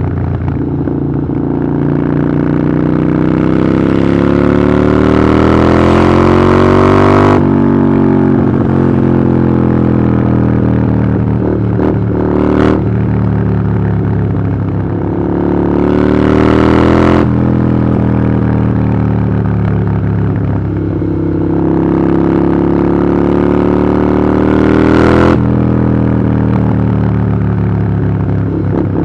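Harley-Davidson Iron 883's 883 cc V-twin running through a Vance & Hines aftermarket exhaust while riding, pulling up in revs three times and dropping sharply each time the throttle is rolled off or a gear changes. A brief sharp click sounds about twelve seconds in.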